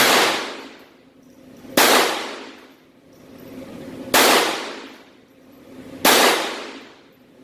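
Four slow, evenly paced shots from a Glock 44 .22 LR pistol, about two seconds apart, each with a long echoing decay.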